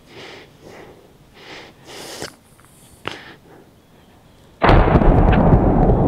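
A single shotgun shot at a turkey, sudden and very loud about four and a half seconds in, followed by a long echo that fades slowly.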